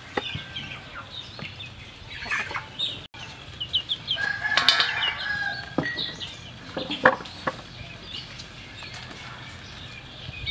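Chickens clucking around the yard, with a rooster crowing once about halfway through, amid many short high chirps. A few sharp knocks, the loudest about two-thirds of the way in.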